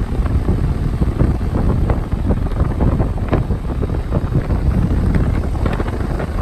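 Trane XE 1200 outdoor air-conditioner unit running, a steady low rumble with heavy wind buffeting on the microphone.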